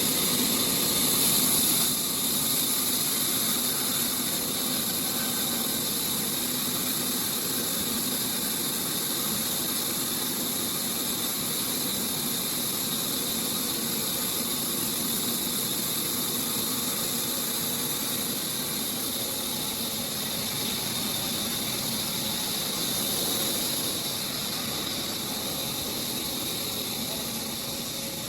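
Large sawmill saw running with a steady high-pitched hiss and squeal over a low machine hum.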